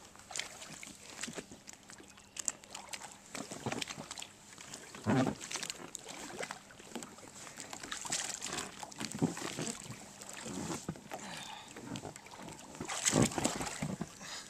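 Irregular scuffing, knocks and short grunt-like noises of a man clambering into an inflatable kayak.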